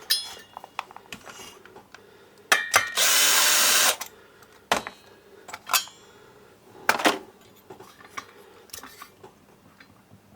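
Metal clicks and knocks from the crankshaft of a DWT BFS 4342 brush cutter's 42.7 cc two-stroke engine being rocked by hand; the crankshaft has a lot of play, a sign of worn bearings, bearing seats or crankshaft. About three seconds in, a loud hiss lasts about a second.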